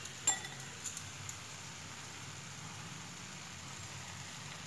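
Faint, steady sizzle of paneer, onion and capsicum frying in a non-stick pan over a gas flame. A sharp utensil click comes just after the start, followed by a few lighter ticks within the first second or so.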